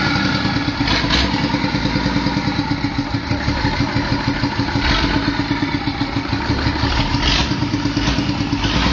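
A bare engine on a test stand running steadily at idle, with a fast, even firing beat. A few short hissing bursts come through it.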